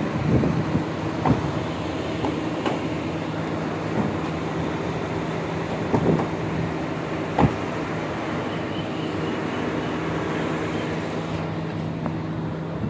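A steady mechanical hum, with a few short knocks as car doors and an open boot are handled and bags are moved. The sharpest knock comes about seven seconds in.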